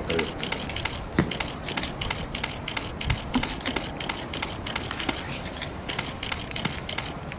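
Camera shutters clicking in rapid, irregular succession during a posed handover, over a background of low voices.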